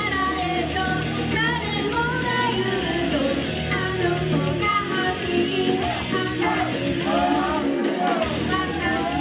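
Live idol pop music: female voices singing a melody over a backing track with a steady bass line.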